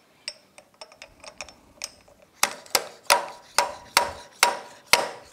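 Metal fork parts of a 2007 Honda Gold Wing GL1800 knocking together as the fork tube is slid hard against the old guide bushing, used as a driver, to seat the new guide bushing in the slider. A few faint clicks, then from about two and a half seconds in a steady run of sharp, ringing metal knocks, two or three a second.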